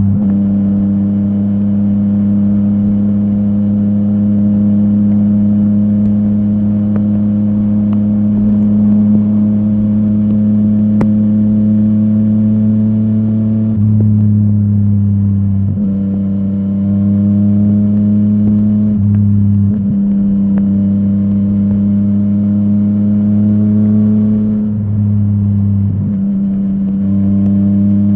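Yamaha MT-09's inline-three engine through a full Akrapovic exhaust, running steadily with a slowly rising note. In the second half the note breaks and drops back briefly several times.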